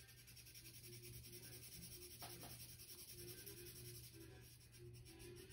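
Faint scratching of a coloured pencil on paper in rapid, even back-and-forth shading strokes, over a low steady hum.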